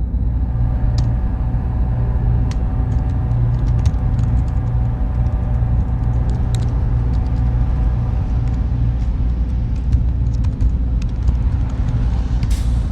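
Steady, loud, deep mechanical rumble with a faint hum above it and scattered light clicks, with a short hiss near the end.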